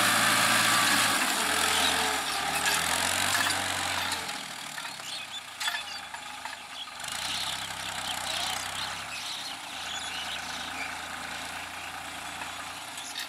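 Case IH JX55T tractor's diesel engine running steadily under load while pulling a tine cultivator through a field, loud for the first few seconds and then quieter.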